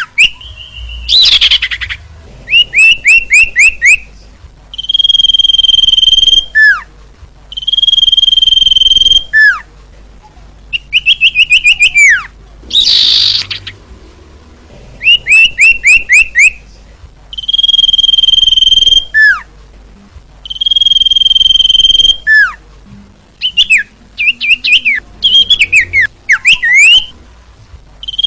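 A sirtu singing a lure song, repeated over and over. It alternates quick runs of about five short falling notes with long, steady, high whistles that each end in a downward slur. A few short, harsh, raspy notes come in between.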